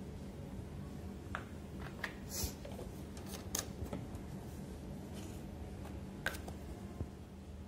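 A steady low hum with a scattering of short, light clicks and taps.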